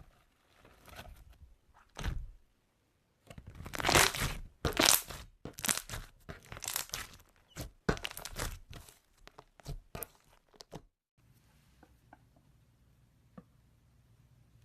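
Slime being pressed and squished: an uneven run of squishes with sharp pops, loudest about four to five seconds in. It stops abruptly about eleven seconds in, leaving a few faint clicks.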